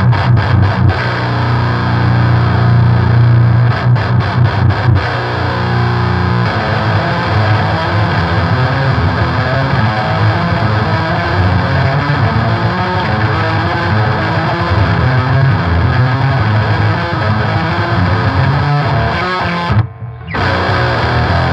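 Heavily distorted baritone electric guitar through a TC Electronic Eyemaster metal distortion pedal into a Mesa Boogie amp's clean channel: a buzzy Swedish death metal tone. It holds low chords for the first few seconds, then plays chugging rhythmic riffs, with a short break near the end.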